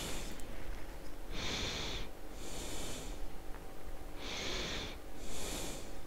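A person breathing heavily and slowly, with hissing breaths in and out. Each breath lasts about half a second, and they come roughly once a second, alternating between a lower and a higher hiss.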